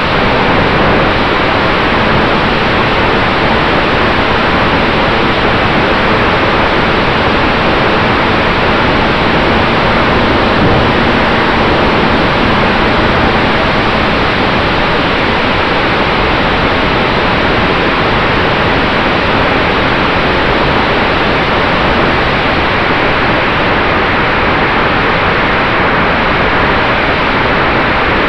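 Loud, steady rush of airflow and propeller noise on the onboard camera of a radio-controlled P-51 Mustang model in low flight, with a faint steady hum underneath.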